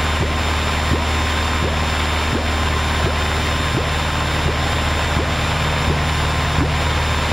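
Piper PA-28 light aircraft's piston engine and propeller droning steadily in flight, heard inside the cockpit.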